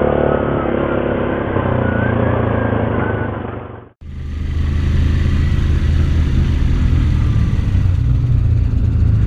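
Yamaha 700 ATV's single-cylinder engine running steadily under way on a dirt trail, heard from on the machine. The sound cuts out abruptly about four seconds in and comes back at once with a brighter, crisper tone.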